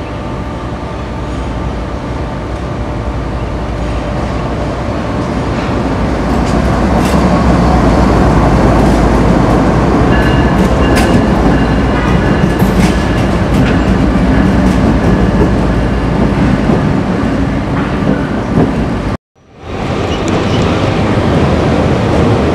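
Diesel locomotives of a light engine move, with no cars behind them, pass close by. Their engines rumble and their wheels click over the rail joints, growing louder over the first several seconds, with a brief thin high squeal around the middle. After an abrupt cut near the end, a single EMD GP38-2 diesel locomotive rumbles past on a local freight.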